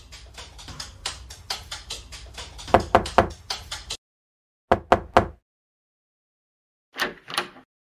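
Light music with a steady beat that cuts off about four seconds in, followed by knocking on a door: three quick knocks, then after a pause two more.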